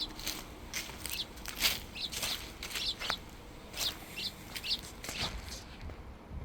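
Footsteps crunching through dry fallen autumn leaves on a woodland trail, about two steps a second, stopping near the end.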